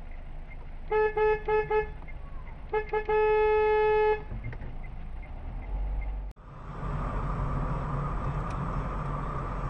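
Car horn honking: four quick toots, then two more and a long blast of about a second. After a sudden cut, steady road and engine noise from a moving car.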